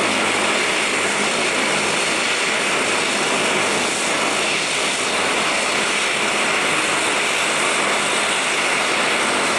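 Airbus A320-232 airliner's twin IAE V2500 turbofan engines at takeoff thrust as it climbs away, a steady, continuous jet rush with most of its energy in the upper-middle range.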